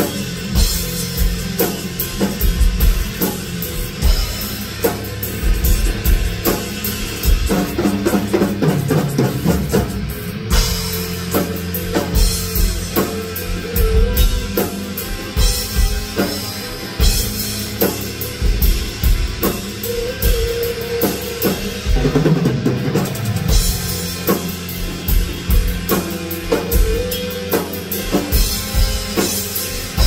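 Instrumental progressive rock played live, a full drum kit with bass drum and cymbals keeping a steady beat under low sustained Chapman Stick and touch-guitar lines.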